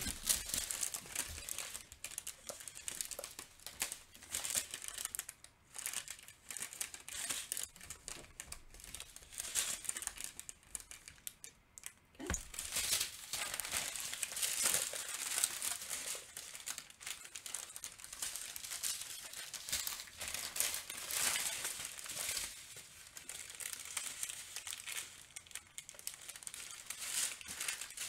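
Small thin plastic bags of diamond-painting drills crinkling and rustling in irregular bursts as they are handled and laid out, with one light knock about twelve seconds in.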